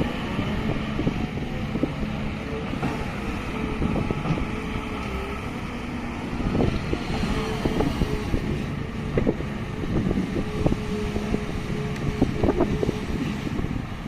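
Diesel engine of heavy earthmoving machinery running steadily.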